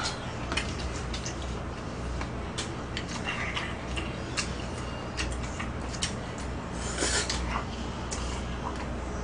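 Table eating sounds: scattered light clicks of chopsticks against bowls and plates, with a brief slurp about seven seconds in, over a steady low hum.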